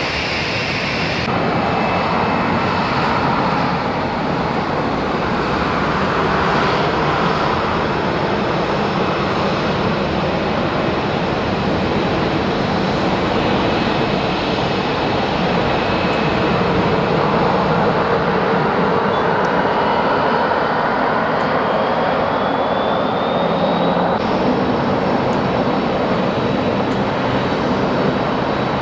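Boeing 737 jet engines running while the airliner taxis: a steady dull noise with a thin whine above it that rises in pitch for a few seconds near the end. In the last few seconds the sound changes abruptly to a Dash 8-400 turboprop taxiing with its propellers turning.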